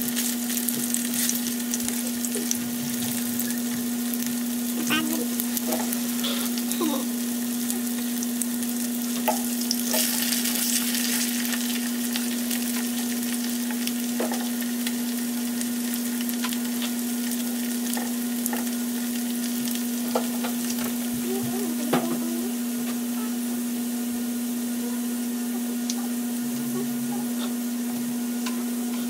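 Skinless longganisa sausages sizzling as they fry in oil in a nonstick pan, with a fork now and then tapping and scraping the pan as they are turned. A steady low hum runs underneath.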